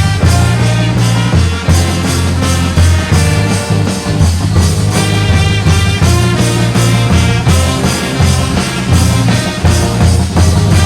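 Street brass band playing an upbeat tune: horns in held, many-overtoned notes over a heavy low bass line, with drums keeping the beat.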